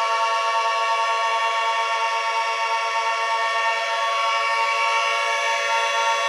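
A collection of sirens all sounding at once, blending into a loud, dense chord of many held tones that stays steady, with no rise or fall.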